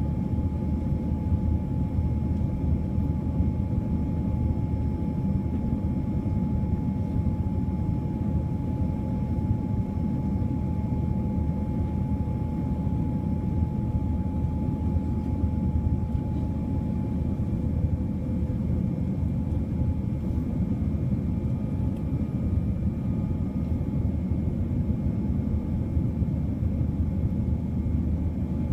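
Steady cabin noise inside a Boeing 787-9 airliner: a low rumble with a faint, constant high whine over it.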